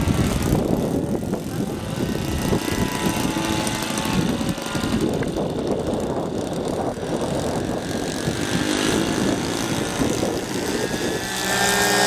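Seagull Edge 540 radio-control aerobatic model's 26cc two-stroke petrol engine and propeller droning in flight overhead. The engine note grows louder and clearer near the end as the plane comes closer.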